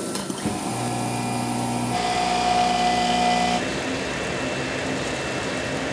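Automatic flatbed cutting plotter cutting dry carbon-fibre fabric, its drive motors running with a steady whine. The whine steps to a new set of pitches about half a second in, again around two seconds, and again a little past three and a half seconds as the cutting head changes its moves.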